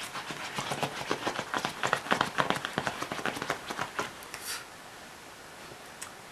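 Yorkshire terrier's claws clicking quickly on the floor as it runs, stopping about four and a half seconds in.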